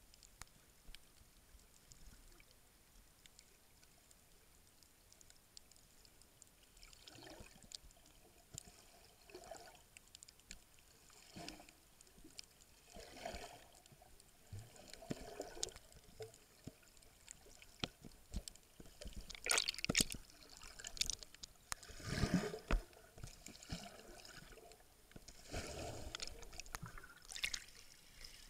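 Faint muffled water sounds heard through an SJ1000 action camera's waterproof case underwater: irregular swells of sloshing and gurgling every second or two as the camera moves through the water. Nearly quiet at first, growing louder past the middle.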